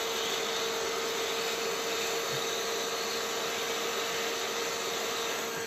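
Hot-air gun blowing steadily with a faint steady hum, heating ABS plastic to soften it so the warped part can be bent back into place. The sound eases slightly near the end.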